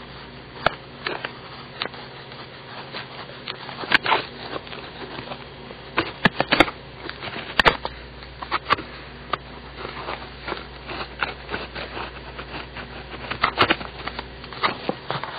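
Paper Mate ComfortMate Ultra mechanical pencil with 0.7 mm lead writing on paper: irregular scratching strokes and sharp taps of the lead, which is squeaky.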